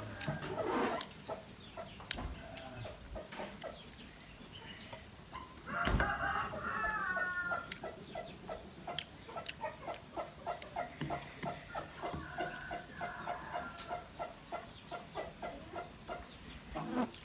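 Chickens clucking: a long run of short repeated calls, about three a second, through the second half, with one longer call about six seconds in.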